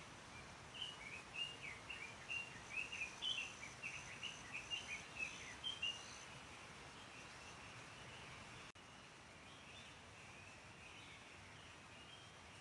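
Small birds chirping in quick, rapid short notes over a steady outdoor hiss; the chirping thins out after about six seconds. About nine seconds in the background cuts off abruptly and resumes with fainter chirps.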